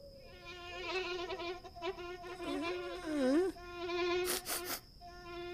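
A held, buzzy, nasal hum on one pitch that dips down and back up about three seconds in, with a few quick clicks near the end.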